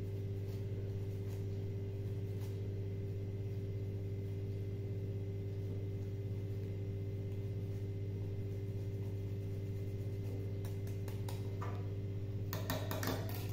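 Steady low electrical hum with a few overtones, and faint scraping and tapping from hard cheese being grated on a flat hand grater over a pot, the scrapes thickening near the end.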